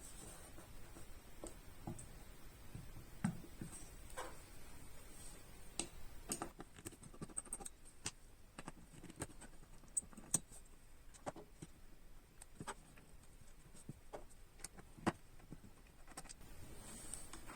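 Scattered small clicks and taps of a router's circuit board and metal case being handled as the board is taken out, with a few sharper knocks among them.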